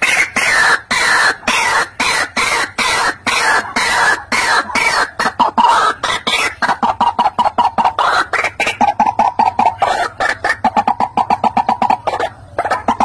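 White-breasted waterhen (ruak-ruak) calling: a loud, continuous run of short, harsh repeated notes. About halfway through the notes speed up into a rapid, even stutter.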